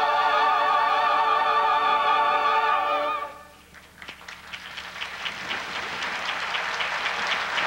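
A large choir holds the final sung chord with vibrato, which cuts off about three seconds in. An audience then starts applauding, the applause building.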